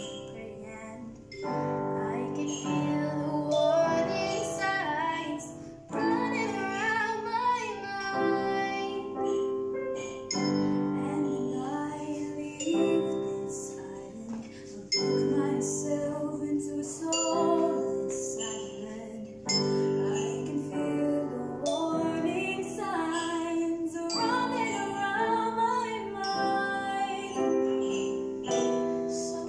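Girls' school choir singing a slow song in harmony, in phrases of a few seconds, with instrumental accompaniment.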